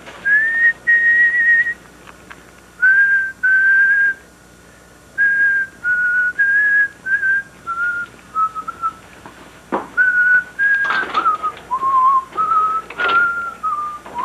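A person whistling a tune: a string of clear held notes with short gaps, the melody drifting gradually lower in pitch.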